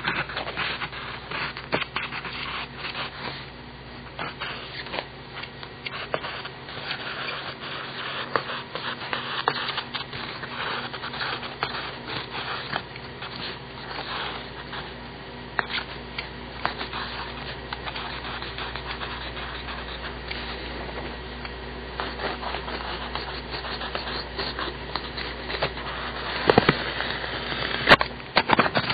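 Paper Mate Dynagrip mechanical pencil with 0.5 mm lead writing on paper: continuous irregular scratching of the lead, with a few sharper clicks near the end.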